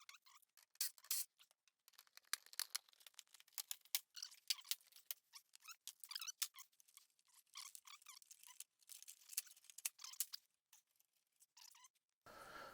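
Faint, irregular clicks and light taps of a small part being worked loose and removed by hand, with a short lull near the end.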